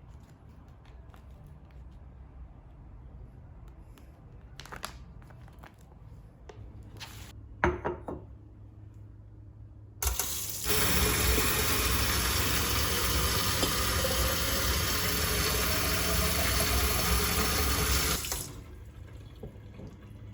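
Water tap turned on and running into a sink for about eight seconds, a steady rush that starts and stops abruptly. A few light knocks come before it.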